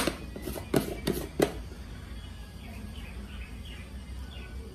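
Several sharp knocks of spice jars and lids being picked up and set down on a tiled countertop, four in quick succession, then faint high chirps over a low steady hum.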